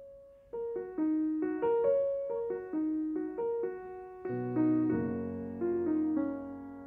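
Background piano music: a simple melody of single struck notes, about two to three a second, each fading away, with lower held notes joining near the end.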